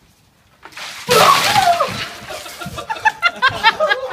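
A bucket of ice water dumped over a man, splashing down about a second in as he lets out a gliding cry, followed by rapid gasping laughter.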